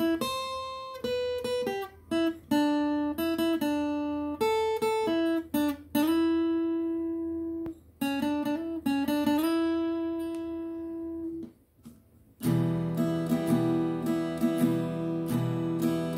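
Cutaway acoustic guitar playing a single-note melody, picked one note at a time with some notes held and left to ring; about twelve seconds in it changes to rhythmic strummed chords.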